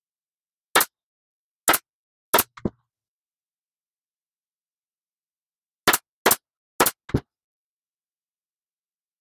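Staple gun firing single sharp shots, eight in all in two quick groups of four, with silence between the groups.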